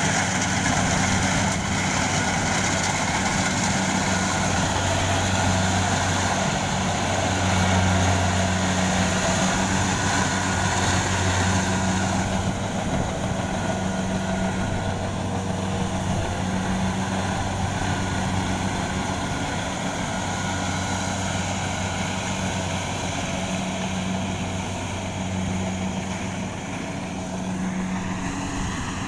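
Rice combine harvester running steadily as it cuts the paddy, its diesel engine a continuous low hum. The sound grows gradually fainter and duller from about twelve seconds in as the machine moves away.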